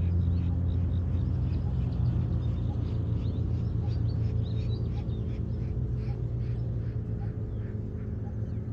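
A steady low engine hum, with many short, high bird chirps and calls repeating over it.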